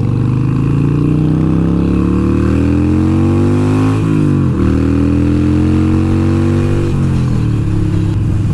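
Harley-Davidson V-twin motorcycle engine pulling up through the gears. Its pitch climbs steadily, drops at a gear change a little past four seconds in, climbs again, then drops near seven seconds and settles.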